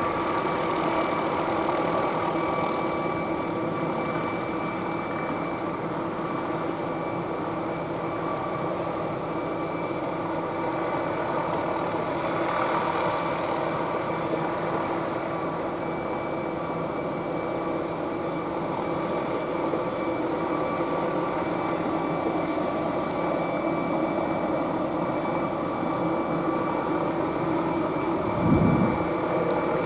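McDonnell Douglas MD 520N NOTAR helicopter in flight: a steady turbine whine over the hum of its main rotor, holding level throughout. A brief low rumble comes near the end.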